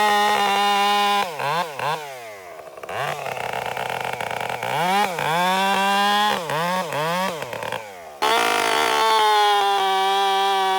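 Two-stroke chainsaw revving from idle to full throttle and held there, dropping back and blipped up again several times. About eight seconds in, the sound changes abruptly to a steady run at high speed.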